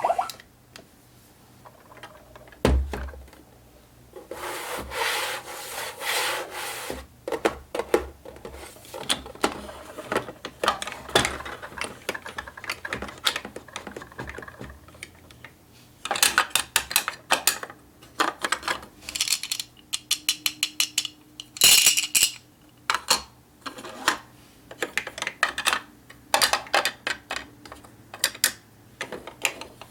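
Small plastic toy kitchen appliances being handled and unboxed: irregular clicks, taps and rubbing of plastic parts, quickening into rapid clicking in the second half.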